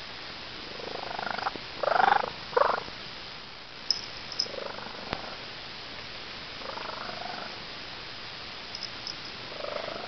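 Calico cat's loud, broken purr that sounds like a bird: short chirping purr phrases coming and going, loudest about two seconds in, with fainter ones later.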